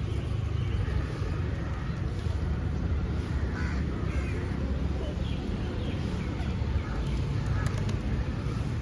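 Crows cawing now and then over a steady low rumble of traffic and wind.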